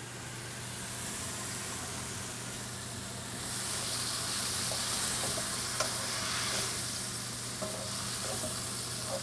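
Food sizzling and frying in a hot pan, the hiss growing louder about three and a half seconds in, with a few light clicks of stirring.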